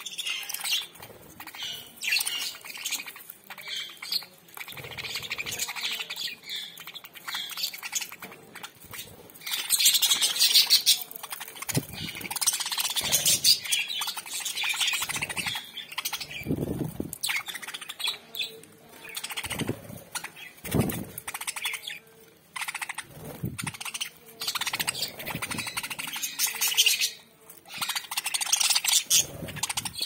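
A flock of budgerigars chattering and chirping at close range, a dense, continuous twittering with scratchy squawks. A few dull knocks are mixed in.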